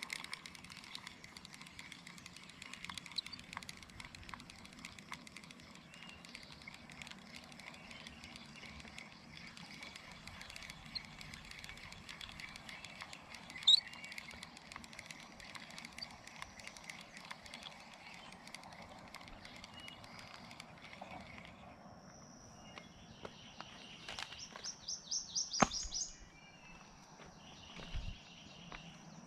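Faint outdoor ambience with scattered bird chirps, one sharp rising chirp about halfway. Near the end a steady high-pitched buzz comes in, with a quick run of repeated high chirps and a couple of knocks.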